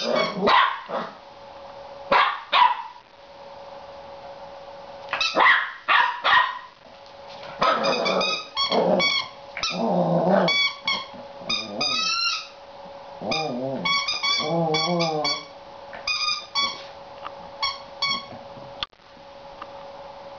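Seven-week-old border collie puppy barking and yipping in repeated high-pitched bursts, with growls mixed in: frustrated play barking at her toy. The barking stops near the end.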